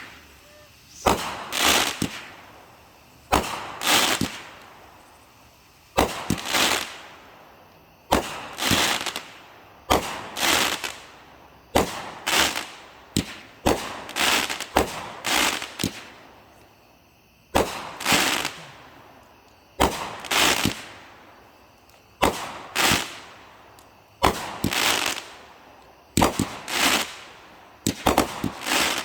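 Consumer aerial fireworks going off in a steady series, about one every two seconds: each a sharp launch pop followed about half a second later by a louder bang as the shell bursts.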